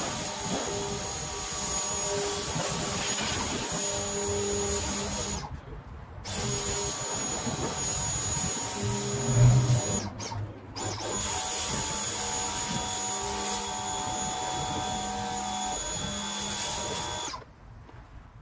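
Pressure washer running and spraying water onto a car body: a steady hiss with a high whine. It stops briefly twice and cuts off near the end as the trigger is released.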